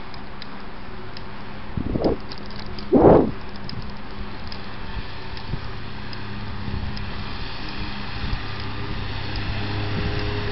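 Wind buffeting a moving helmet camera's microphone over a steady low hum, with two hard gusts about two and three seconds in.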